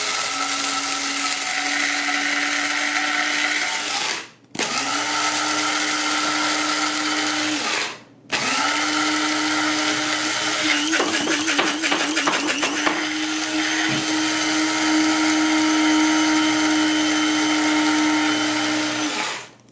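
Amazon Basics electric blade coffee grinder running in three bursts with two short pauses, its motor whirring steadily while the stainless steel blade chops whole coffee beans into grounds. It rattles briefly partway through the last, longest run.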